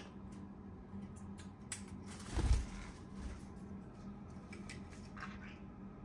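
Light scattered clicks and taps from a conure moving on its wooden play stand, with one short, louder whoosh and thump about two and a half seconds in.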